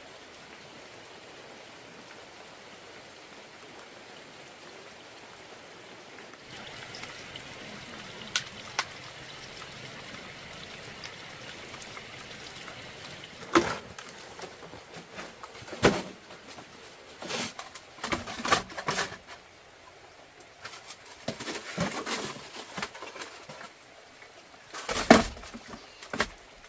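Water pouring or trickling for several seconds, then a series of irregular knocks and thumps, the loudest near the end.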